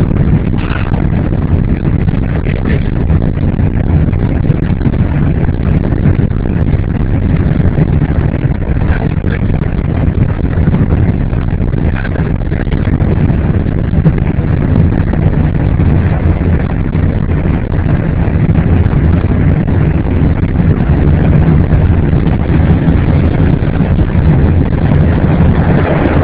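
Steady, loud drone of a tanker aircraft in flight, heard inside at the boom operator's station: engine and airflow noise, unchanging while the refueling boom is connected to the receiving 747.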